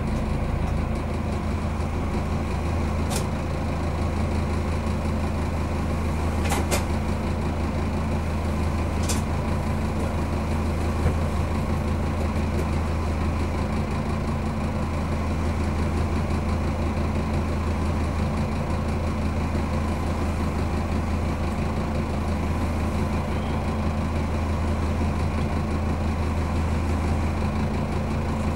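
Diesel railcar's engine idling steadily while the train stands at a red signal, heard from inside the driver's cab, with a few faint ticks in the first third.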